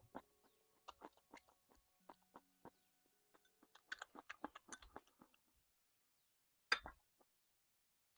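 Close-up crunchy chewing of firm, crisp food such as jellyfish or seaweed: a run of short, sharp crunches, thickest about four to five seconds in, with one louder crunch near the end.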